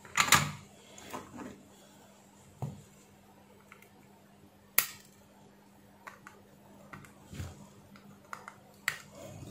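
A few scattered clicks and taps from handling a small switch-mode power-supply circuit board and metal tweezers on a workbench, the loudest about a third of a second in and another sharp click near the middle, over a faint steady hum.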